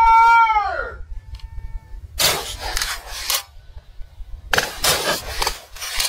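A person's long drawn-out shout, held steady and then falling in pitch as it dies away about a second in. It is followed by two spells of close rustling, someone pushing through dry prairie grass and brush.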